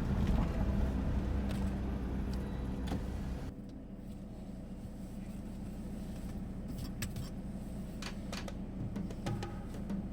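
Vehicle running with a steady low rumble that drops away suddenly about three and a half seconds in, leaving a quieter background with scattered sharp clicks.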